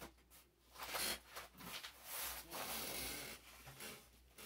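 Faint, irregular rustling and rubbing handling noise close to the microphone, as a person moves about with a package.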